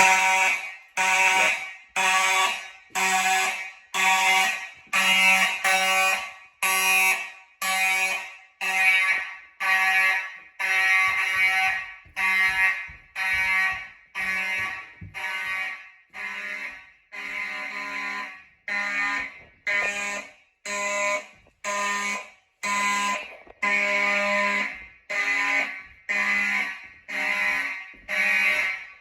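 Fire alarm horns sounding in alarm: loud, buzzy horn blasts in an even pulse, about one a second, with no pause.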